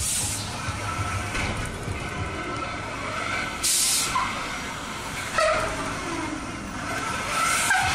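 Swinging pirate-ship fairground ride in motion: a steady low rumble with three sharp hisses, the loudest near the middle, coming round with the swings of the boat.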